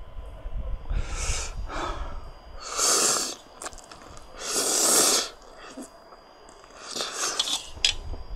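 A man sniffling and breathing hard through his nose and mouth, with two longer, louder breaths about three and five seconds in. His nose is running and his eyes watering from extremely spicy fire noodles.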